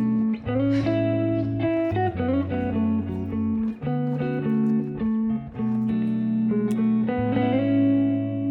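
Background music led by guitar: a slow melody of held notes.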